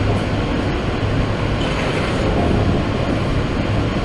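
New York City subway car running between stations, heard from inside the car: a steady rumble with rail and wheel noise.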